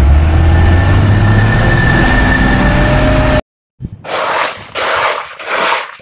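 Mobile crane's diesel engine running with a steady low drone, cut off suddenly about three and a half seconds in. After a brief gap come about four loud, rough rustling scrapes.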